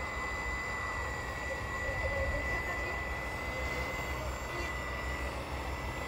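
Radio-controlled CAT excavator running as it digs and swings a loaded bucket, with a steady high whine over a low rumble.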